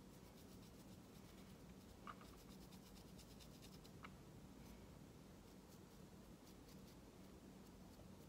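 Very faint light scratching of a worn flat dry brush whisked over a painted miniature's claws and spine tips, with two small clicks about two and four seconds in, over a faint steady hum.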